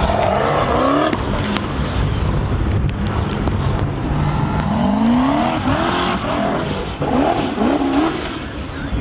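Formula offroad car's V8 engine revving hard, its pitch sweeping up in repeated bursts over a steady low rumble.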